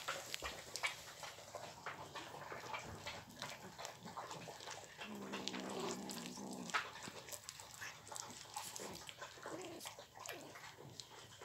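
Kittens chewing and smacking on raw meat, many quick wet clicks. About five seconds in, one gives a drawn-out low, whining growl lasting under two seconds.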